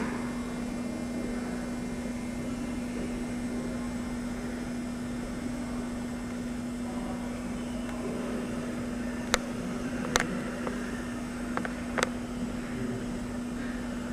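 Steady hum of an indoor ventilation or air-handling system, one low tone over an even hiss. A few sharp knocks come about nine, ten and twelve seconds in.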